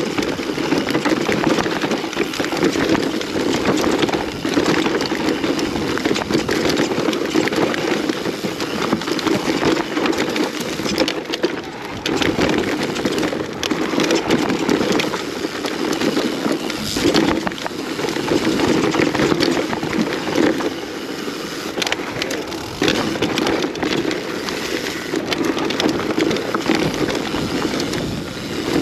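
Mountain bike running fast downhill on a rough enduro trail: tyres rolling over dirt, roots and rocks, with a steady rush of noise and constant clattering knocks from the bike.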